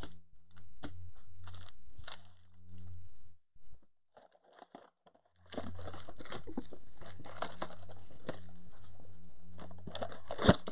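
Cardboard trading-card blaster box and its packaging being handled and torn open by hand, with crinkling and crunching rustle, a short quiet spell midway and a sharp knock near the end, over a steady low hum.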